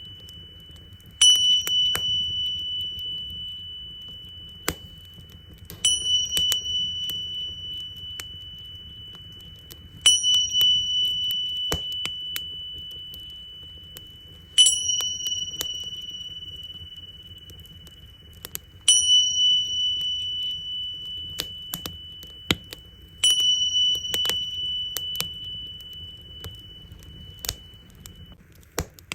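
Tingsha cymbals struck together six times, about every four seconds, each strike a high, clear ring that fades slowly. Underneath, a wood fire crackles with scattered pops.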